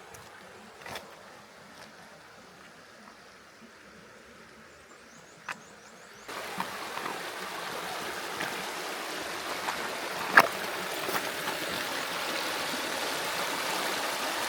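A rocky Ozark creek rushing and flowing over stones. It comes in suddenly about six seconds in and runs on steadily, after a quiet start with a few faint taps. A single sharp click sounds a few seconds after the water starts.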